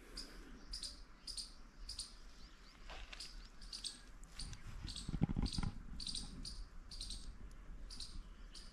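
Short high chirps repeating about twice a second, from a bird or insect calling in the scrub. About five seconds in there is a louder low rustle and thump.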